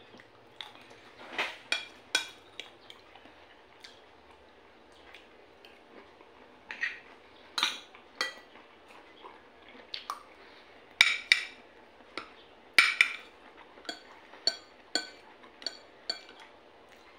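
Metal spoon and fork clinking and scraping against a plate during a meal, in scattered sharp clicks. The loudest come past the middle, then a quick run of clinks near the end.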